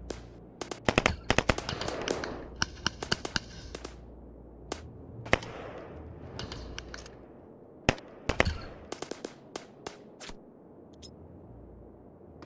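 Small-arms gunfire: irregular volleys of sharp shots, densest in the first three seconds and again around eight to ten seconds in, thinning to a single faint shot near the end.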